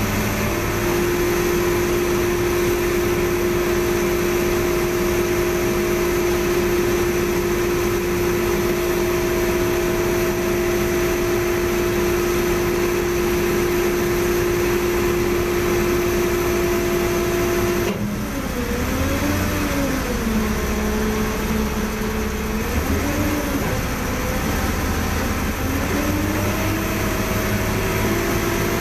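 A crane's engine running steadily under load with a held tone. About eighteen seconds in, the tone drops and wavers up and down as the engine speed changes, then climbs back near the end.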